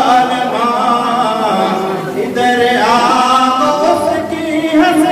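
A man's voice chanting a slow devotional melody without accompaniment, holding long notes that waver and glide in pitch.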